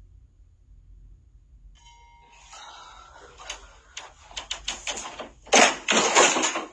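Scattered clicks and scuffles, then about five and a half seconds in a loud crash and clatter as a doorway pull-up bar comes loose from the door frame and falls with the person hanging from it.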